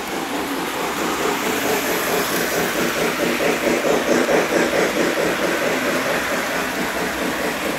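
Lionel O-gauge model trains running steadily on the layout track, with motors and wheels making a continuous rumble. A rhythmic clatter grows louder about three seconds in as an old Lionel 2037 steam locomotive passes close by.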